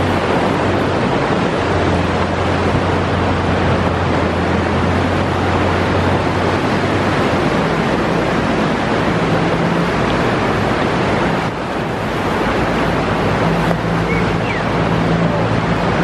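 Outboard motor of a Zodiac inflatable running steadily, its low hum shifting in pitch about halfway through, under wind noise on the microphone and surf breaking against the rocks.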